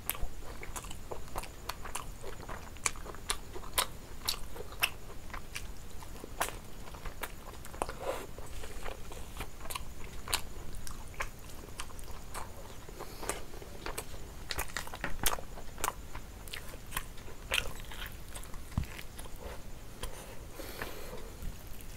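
Close-miked chewing and biting of roast chicken eaten by hand: a dense run of sharp, irregular mouth clicks and crunches.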